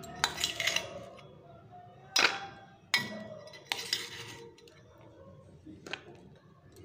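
Steel spoon scraping and clinking against a stainless steel bowl as sweet corn kernels are scooped out, in about five separate strokes with short scrapes between.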